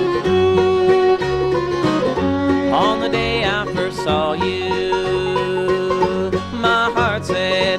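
Bluegrass string band playing an instrumental break, with banjo to the fore over guitar, fiddle and bass, and a few sliding notes.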